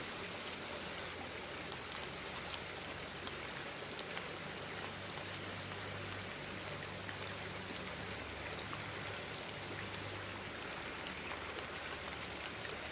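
Mountain stream flowing, a steady, even rushing of water.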